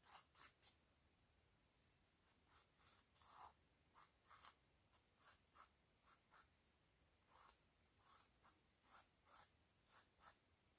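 Pencil sketching on stretched canvas: faint, short scratchy strokes at an irregular pace, about twenty of them.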